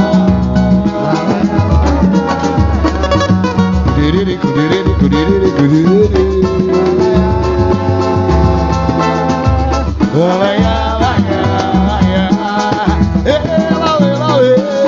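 Samba band playing a pagode groove: a steady percussion beat under a melody line that slides up and down in pitch, with no sung words.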